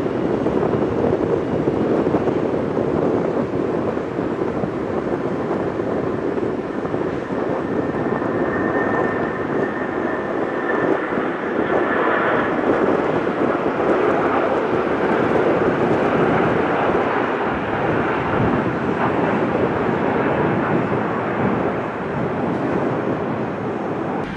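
Jet airliner engines running, a steady rushing noise throughout. A thin high whine comes in about a third of the way through and fades a few seconds later.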